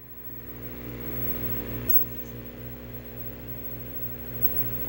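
Electrical hum and buzz from a 1978 Hitachi solid-state colour portable TV under test: a steady low hum under several steady buzzing tones, the lowest of them throbbing several times a second, growing louder over the first second.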